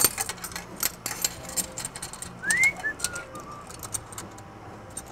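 Light metallic clinks and taps of a stainless exhaust pipe being worked by hand against the turbo outlet of a snowmobile engine. Near the middle, a short whistled phrase: one rising note, then a few shorter falling ones.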